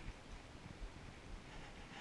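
Faint low rumble of wind on a body-worn microphone, with soft rustling of clothing as the wearer crouches.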